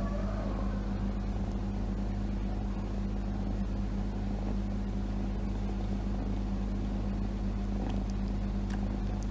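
Kitten purring steadily, a continuous low hum.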